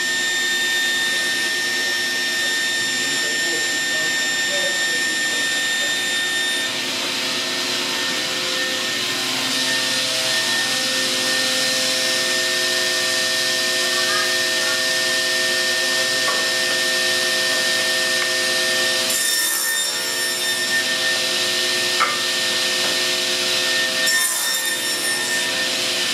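Sliding table panel saw running steadily, a constant whine of several tones over a hiss. It makes two short cuts through wooden strips near the end.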